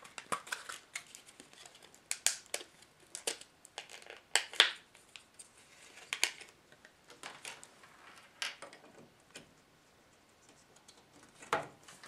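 Handling noise: scattered light clicks and plastic crinkling as a RAM stick is taken out of its plastic packaging, coming in short, irregular bouts.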